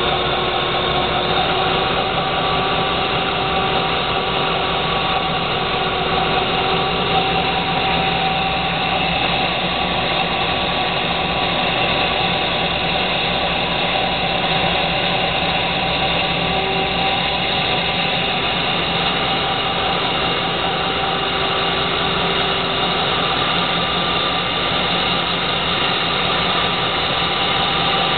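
Caterpillar D399 V16 diesel engine running at a steady speed.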